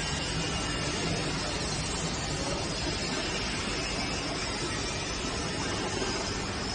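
Continuous carbonization furnace plant running: a steady, even noise with no distinct beats or tones.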